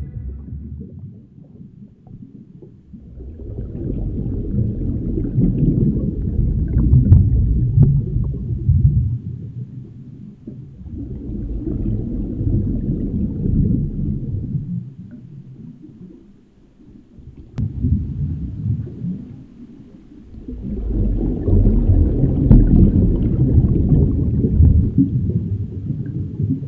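Deep, low rumbling that swells and fades about four times, each swell lasting a few seconds, with the third one starting suddenly.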